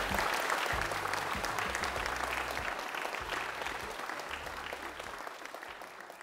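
Crowd of guests applauding, with dense, even clapping that fades out gradually toward the end.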